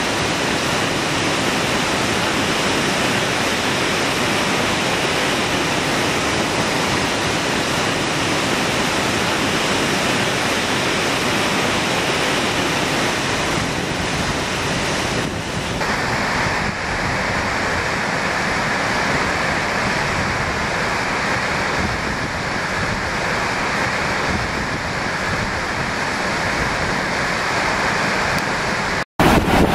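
Muddy, debris-laden flash-flood water rushing steadily through the channel. The sound changes slightly about halfway through and cuts out for a moment near the end.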